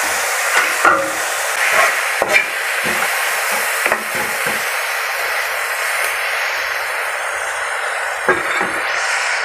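Green peas, carrots and onion sizzling steadily in hot sesame oil in a pan as they are stir-fried, with a few short knocks and scrapes of the spatula against the pan.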